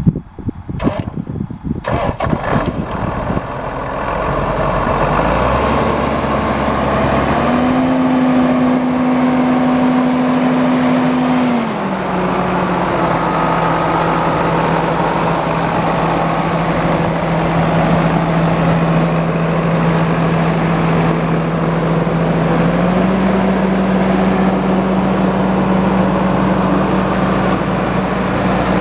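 John Deere 8400 tractor's six-cylinder turbo diesel starting about two seconds in, then running steadily. Its engine speed steps up around eight seconds in, drops back around twelve seconds, and rises a little again near the end.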